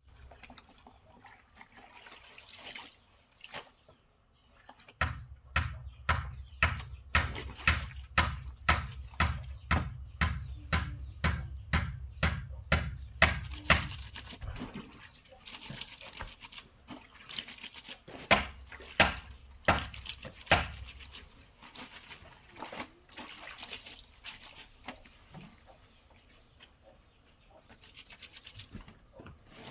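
Clothes being washed by hand in water: a run of rhythmic scrubbing and sloshing strokes, about two a second, starting about five seconds in, then looser, irregular splashes.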